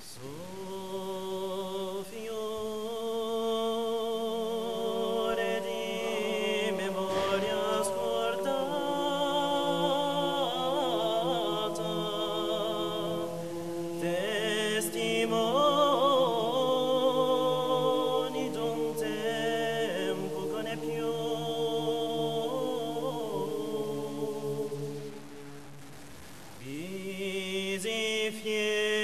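Men's voices singing a Corsican chant a cappella in several-part harmony, in a church: long held chords under an ornamented upper line. Near the end the singing drops to a quieter stretch, then the voices swell back in.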